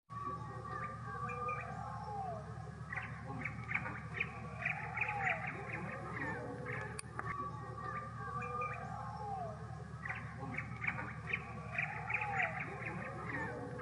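Birds chirping and squawking: clusters of short chirps and an arched call that come back about every four seconds, over a steady low hum.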